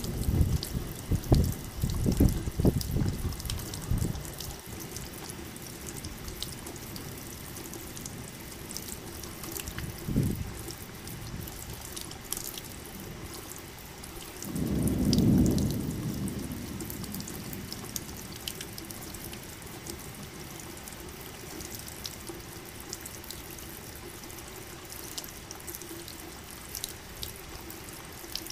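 Steady rain with scattered dripping drops, and low thunder rumbles: several in the first few seconds, a short one about ten seconds in, and the loudest, a longer rumble lasting about two seconds, about fifteen seconds in.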